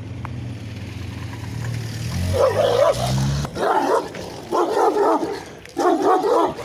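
A dog barking in short loud bouts, four of them about a second apart, starting a little over two seconds in. Under the start runs a low steady hum that stops about three and a half seconds in.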